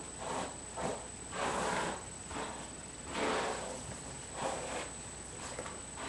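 Rustling swishes of long hair being stroked and smoothed around the head by hand, about six irregular strokes, each lasting under a second.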